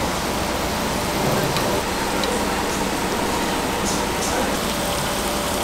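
Grilled pork and beef sizzling on a tabletop barbecue grill plate, a steady hiss.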